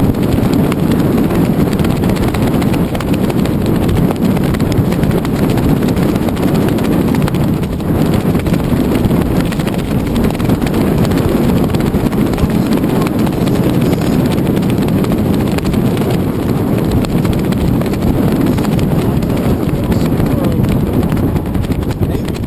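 Wind buffeting the action camera's microphone: a loud, steady, rumbling rush with a fast flutter running through it.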